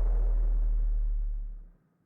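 The end of a background electronic music track: a deep held bass note with a fading wash above it dies away, leaving silence near the end.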